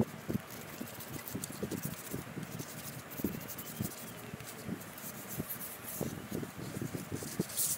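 Sandpaper rubbed by hand over the bare wood of a small rocking chair, in short, irregular scratchy strokes, with a louder rasp near the end.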